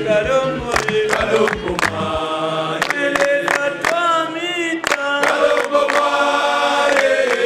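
A group of men singing together in chorus, with hand claps. A deep bass part drops out about two seconds in.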